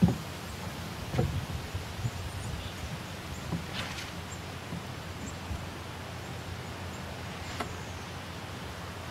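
Steady outdoor background hiss with a few dull low thumps, the loudest at the very start and another about a second in, and a brief faint rustle near the middle.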